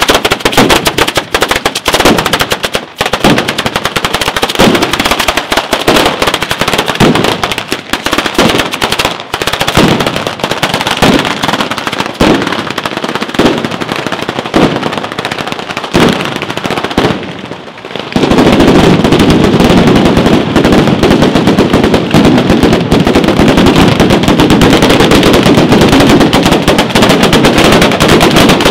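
A ground batteria, a long chain of firecrackers laid along the street, going off in a rapid, dense rattle of bangs with heavier reports about once a second. About eighteen seconds in it thickens into one continuous, unbroken crackle, louder still.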